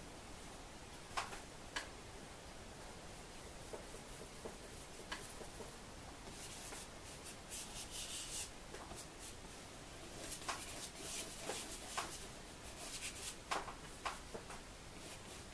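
A paintbrush's bristles scratching and rubbing across a stretched canvas as acrylic paint is brushed on. The strokes are faint and come in short runs, busiest in the second half, with a few light taps.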